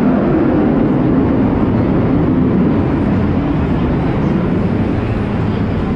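A loud, steady rumble of aircraft engine noise heard from inside an exhibition marquee, easing slightly partway through.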